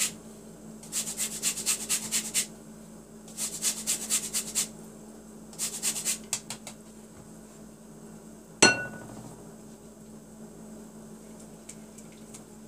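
Orange peel being zested on a fine metal grater: four bursts of quick rasping strokes in the first seven seconds. About nine seconds in, a single sharp knock on glass with a short ring.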